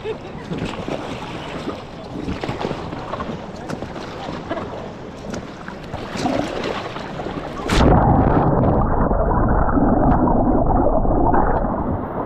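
Rushing river water around a raft with wind buffeting the microphone. About eight seconds in, the sound turns abruptly louder and muffled.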